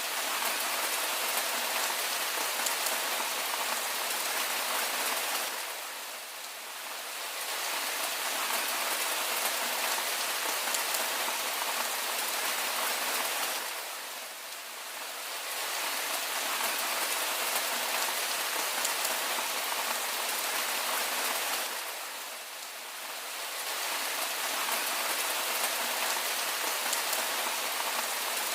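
Steady rain falling on a surface, an even hiss of many fine drops that eases slightly and swells back about every eight seconds.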